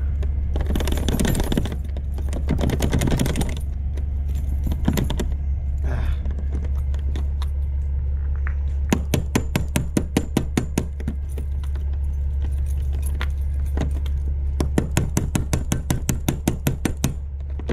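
A stubborn padlock and its keys rattling and clicking on a semi-trailer's rear-door lock handle as it is worked by hand: two scraping rattles in the first few seconds, then two quick runs of clicks, about ten a second, in the second half. A steady low hum runs underneath.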